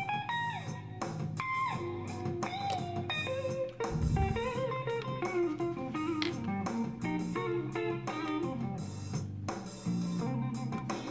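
Background music with a plucked guitar melody.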